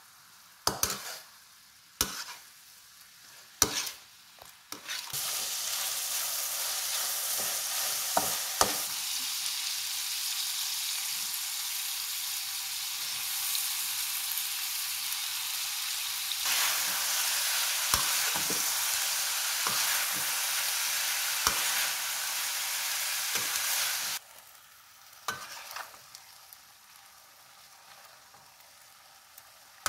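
Metal spatula scraping and tapping in a wok, then loud, steady sizzling of meat and sliced onions stir-frying in hot oil that stops abruptly about three-quarters of the way through. After it, quieter stirring with occasional scrapes.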